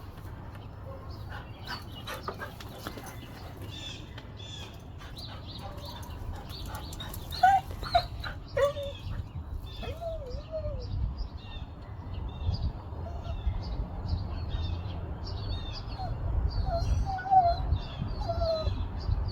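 German shorthaired pointer whining and whimpering in short, high, wavering cries that come thicker in the second half, over a steady low rumble, with a few sharp knocks.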